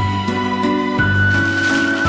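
Background music: a gentle melody of held notes over a steady bass line, the melody note changing about once a second.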